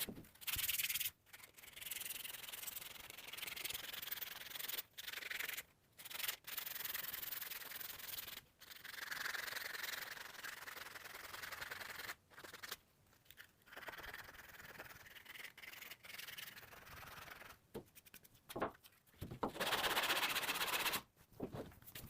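Rubbing or scraping against a surface, in several stretches that start and stop abruptly.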